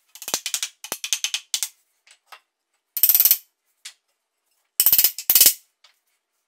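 A small hammer tapping wooden dowels home into a wooden frame rail, in three runs of quick, sharp taps, the first the longest.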